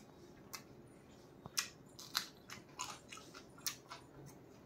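A person chewing a mouthful of chicken and rice, with faint wet smacks and clicks at irregular intervals.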